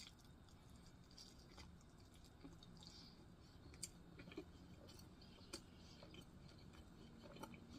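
Faint close-up chewing of a last bite of barbecue ribs, with scattered soft wet mouth clicks, a couple a little louder partway through.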